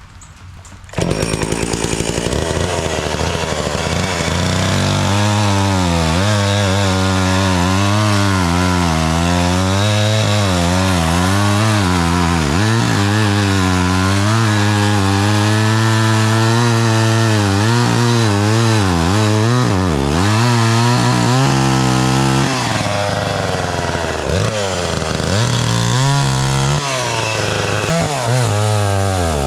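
Homelite 240 two-stroke chainsaw, running at high speed after starting abruptly about a second in, its engine pitch rising and falling again and again as it is put to work cutting wood.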